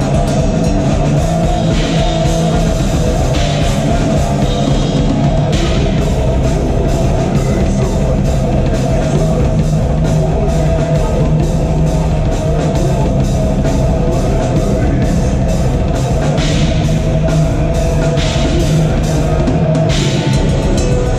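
Metal band playing live: distorted electric guitars and a drum kit, loud and dense, with fast, evenly spaced drum hits and bursts of cymbal crashes.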